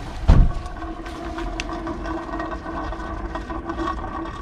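A tap is opened with a single loud clunk, then water runs under pressure through the hose into the motorhome's fresh-water tank, with a steady humming whine over a low rumble.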